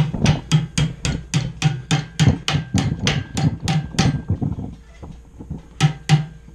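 Hand hammer striking hot quarter-inch square steel bar, bending the loop of an S hook around a jig held in a vise. The blows come in a quick even run of about four to five a second, stop, then two more come near the end.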